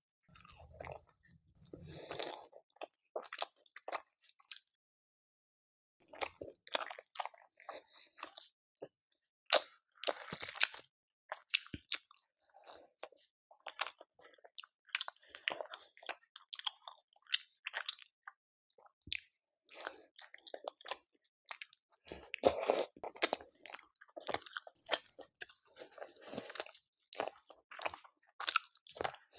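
Close-miked chewing of a chicken curry and pulao meal: irregular wet smacks, squishes and small clicks of the mouth, pausing briefly about five seconds in.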